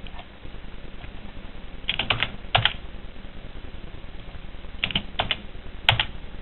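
Computer keyboard keys and mouse buttons clicking in three short clusters, about two, five and six seconds in, over a steady low hiss.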